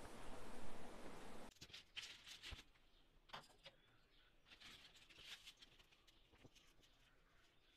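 A faint steady hiss that cuts off about a second and a half in, then scattered light clicks and taps, like small objects being handled.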